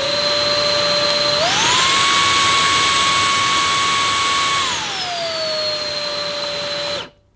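Numatic Hetty Quick cordless vacuum cleaner's motor running with a steady whine on its normal setting. About a second and a half in, it is switched to boost and the whine rises to about twice the pitch. Near five seconds in, it glides back down to the normal setting, and the motor shuts off about seven seconds in.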